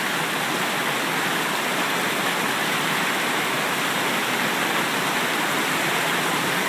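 Steady rushing of a rocky creek tumbling over small cascades and rapids.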